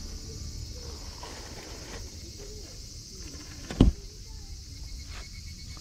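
Outdoor ambience with a steady high hiss and faint distant bird calls, broken by a single sharp thump about four seconds in.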